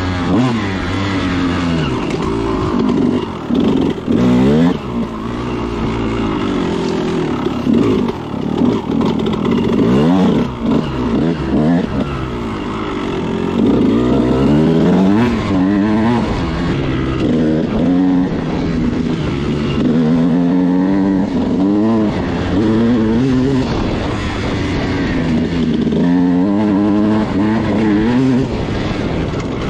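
Kawasaki KX dirt bike engine under way, revving up and down every second or two as the throttle opens and closes. It is being run in on a newly fitted piston.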